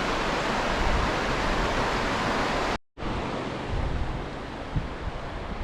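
Rushing river water, a steady hiss. After a brief cut about three seconds in it is quieter, with wind buffeting the microphone in low rumbles.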